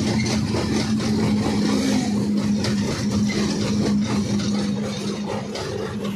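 Ashok Leyland 14-tyre truck's diesel engine running steadily while the truck cruises, heard inside the cab as a steady hum over rumble and road noise.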